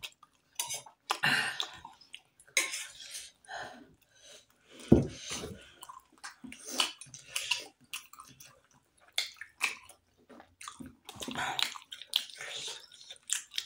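Close-up eating sounds: wet slurping and chewing of steamed momo dumplings and soup, in irregular short bursts.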